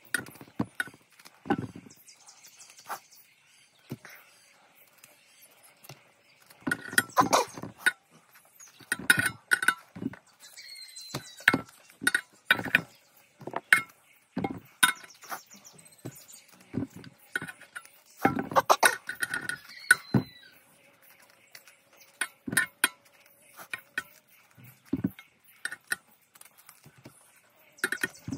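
A knife cutting small pieces off a hand-held chunk of food, with the pieces dropping into a large stainless steel basin: irregular clicks, knocks and clinks, some in quick runs.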